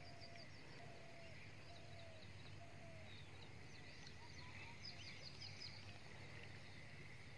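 Faint birds calling: a short, slightly falling whistled note repeated about once a second for the first three seconds, and quick clusters of high chirps, the densest a little past the middle.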